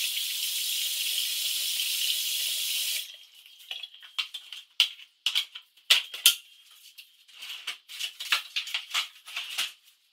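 A bathroom tap runs with a steady hiss and is shut off suddenly about three seconds in. After that come scattered light clicks and taps as plastic skincare items are picked up and handled on the granite counter.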